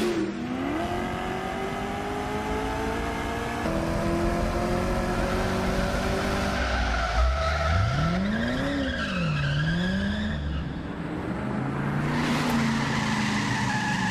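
Ford Mustang engine accelerating hard, its note climbing with a shift about four seconds in, then a sharp rev up and back down around eight seconds in. Tyres squeal as it swerves.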